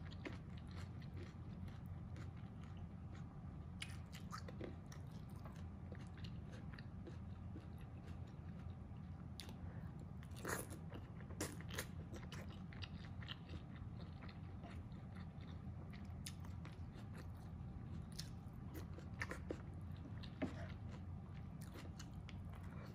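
Close-miked chewing and mouth sounds of someone eating mapo tofu with rice, with scattered short sharp clicks, a few louder than the rest, over a steady low hum.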